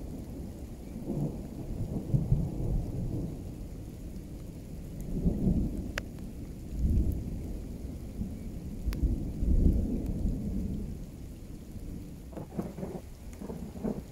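Thunder rumbling in several rolling swells that rise and fade, over steady falling rain. Two sharp ticks stand out, about 6 and 9 seconds in.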